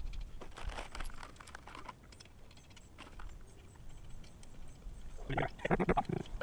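Scattered light clicks and knocks of small objects being handled, then a person's voice briefly near the end.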